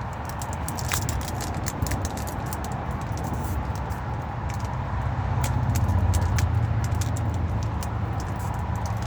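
Booster-pack packaging being handled and worked at by hand: scattered small crackles and clicks of the wrapper over a steady low rumble that grows louder about halfway through.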